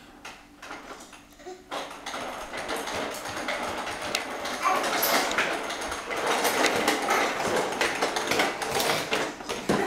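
Plastic baby push-walker rolling across a hardwood floor, its hard plastic wheels and bead-and-ball rattles clattering steadily. The clatter starts about two seconds in and grows louder as the walker comes closer.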